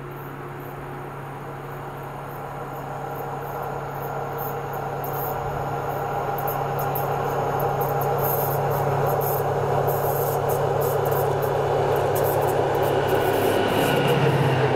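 SM42 diesel-electric locomotive approaching with a passenger train, its engine drone growing steadily louder, then dropping in pitch near the end as it draws level.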